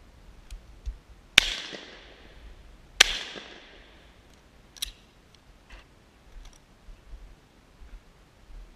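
Two 12-gauge over-and-under shotgun shots about a second and a half apart, each with a short echoing tail, fired at crows; a few lighter clicks follow.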